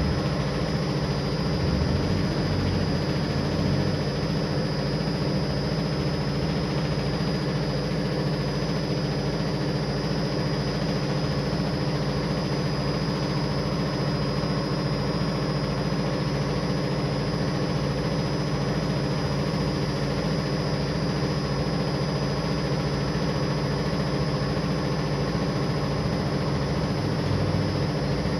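A machine running with a steady, unchanging low drone.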